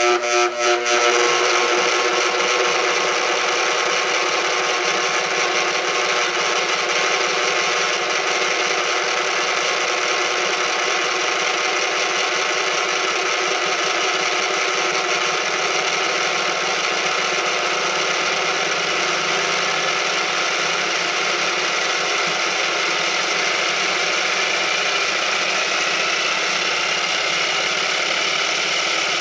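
Shake table running steadily and shaking a plastic model pagoda, a continuous even mechanical noise with the model's loose sliding joints rattling. A faint whine rises slowly near the end.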